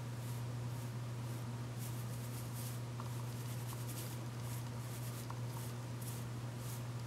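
Fingers rubbing and fluffing curly hair: short, soft, scratchy rustles, several a second and uneven, over a steady low hum.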